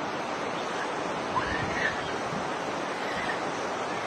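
Steady rushing noise of wind on the microphone, with low gusts. A few faint short high chirps come through about a second and a half in.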